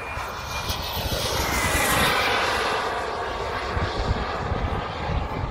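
Radio-controlled model airplane flying past overhead, its motor whine growing to a peak about two seconds in and then easing off. Wind buffets the microphone underneath.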